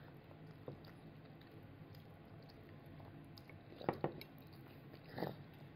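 Toddler chewing food quietly, with a few small mouth clicks and smacks; the sharpest click comes about four seconds in.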